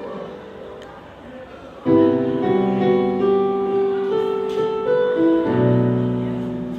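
Piano playing a slow piece. A low chord struck about two seconds in rings on under a few changing melody notes, and another low chord comes in near the end.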